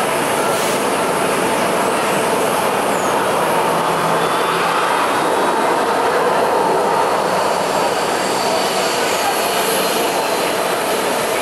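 Airport apron passenger bus driving slowly past close by, its engine and tyres loudest about halfway through, over the steady noise of jet airliner engines running on the apron.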